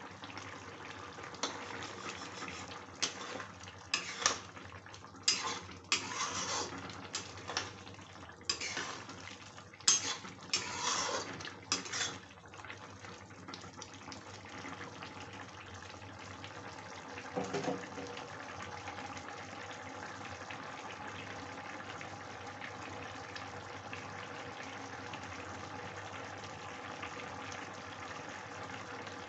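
Metal spatula stirring and scraping against a kadhai of curry gravy, a run of clinks and scrapes, then from about halfway the gravy simmering with a steady bubbling hiss. A single dull knock a few seconds after the stirring stops.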